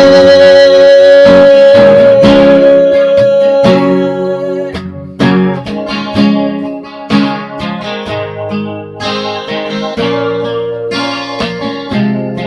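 Guitar music ending a song: a long held note over the first few seconds, then a run of plucked and strummed chords.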